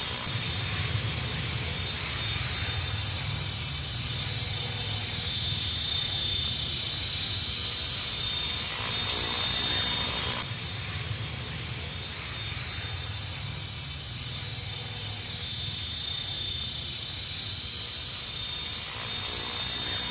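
Two radio-controlled model helicopters flying together: a steady rotor drone under a broad hiss, with a thin, steady high whine.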